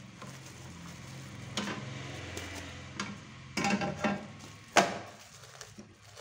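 Cling film rustling and crinkling as a set chocolate slab is lifted and turned out of an aluminium tray, with a single sharp clack of the metal tray about five seconds in, the loudest sound.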